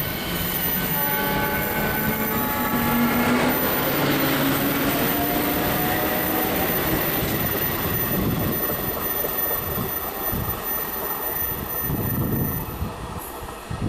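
ICF Medha three-phase EMU running past, with steady wheel-on-rail rumble and the electric traction drive's whine rising in several tones together through the first half as the train gathers speed. The whine then fades and a lower, uneven rumble remains, easing near the end.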